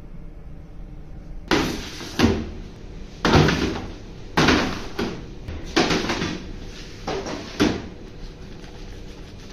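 About nine sharp bangs, spaced irregularly over some six seconds, each dying away quickly, over a steady low hum.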